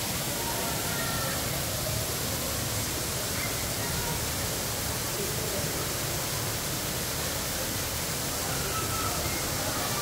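Small indoor waterfall splashing into a pool: a steady, even rush of falling water.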